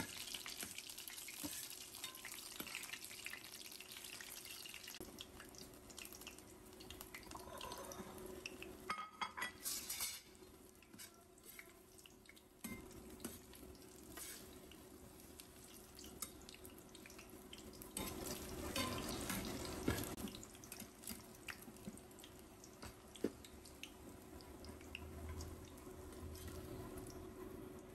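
Battered cauliflower pieces frying in oil in a stainless steel pan: a steady soft sizzle with scattered crackles. A slotted metal spatula scrapes and clinks against the pan now and then, most around ten and twenty seconds in.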